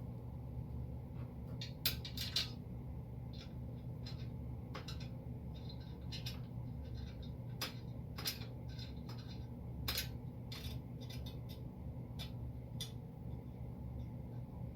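Small metal parts clinking and clicking irregularly: screws, a hex key and frame pieces handled during assembly of a laser engraver frame. The sharpest clinks come about two seconds in and again around the middle.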